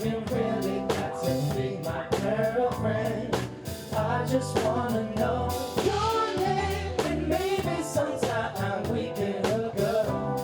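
A song with a singer, drums, bass and guitar, with a steady beat.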